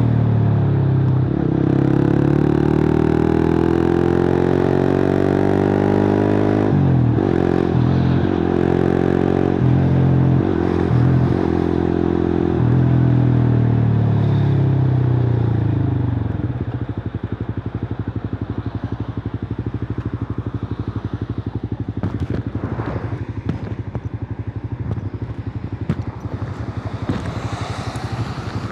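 Suzuki GSX-R150's single-cylinder engine through a cut-open exhaust, revs rising steadily over the first six seconds, then dipping briefly several times before holding. From about twelve seconds the revs fall away, and it settles into a lower, steady note with a light crackle.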